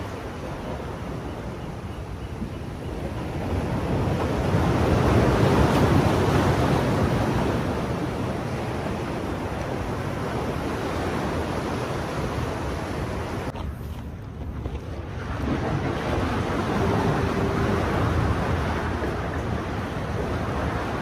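Ocean surf washing against the boulders of a rock jetty, with wind on the microphone. The wash swells about four seconds in and again about sixteen seconds in, with a short lull between.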